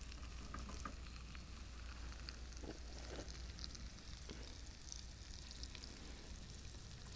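Flounder, mushrooms and onions frying in hot olive oil in a pan: a faint, steady sizzle with a few small clicks scattered through it.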